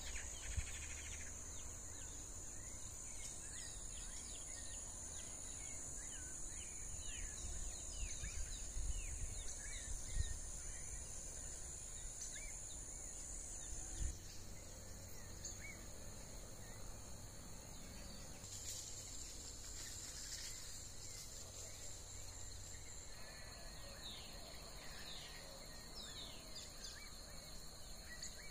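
Rural outdoor ambience: insects keep up a steady high-pitched drone that shifts in pitch about halfway through, while birds give many short chirps and calls. A low rumble runs underneath, with a few bumps near the middle.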